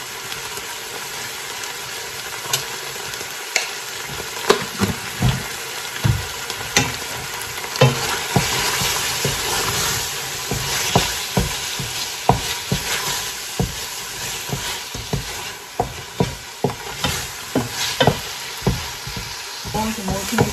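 Wooden spoon stirring curry in a steaming stainless steel stockpot, knocking repeatedly against the pot, over a steady hiss from the hot, sizzling liquid. The knocks start a couple of seconds in and come thick and fast through the second half.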